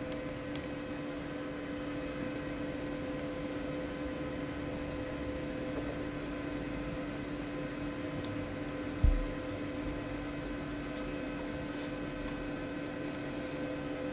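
Steady electrical hum with faint small clicks of screwdriver work on an opened laptop's screws, and one dull thump against the desk about nine seconds in.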